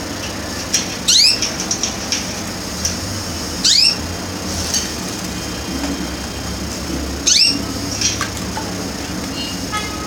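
Canary giving three short, sweeping chirps a few seconds apart, with a few light clicks between them, over a steady low hum.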